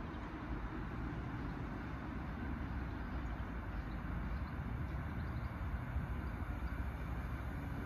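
Distant rumble of an approaching Class 66 diesel locomotive, its two-stroke V12 engine a low steady drone that grows slightly louder.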